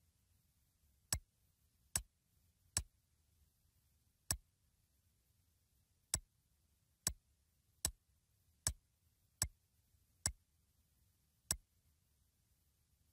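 Computer mouse clicking, eleven sharp single clicks at roughly one a second with a couple of longer gaps, over a faint hum. The clicks toggle the on-screen pushbutton input in PLC simulation software, each on-off pulse advancing the counter.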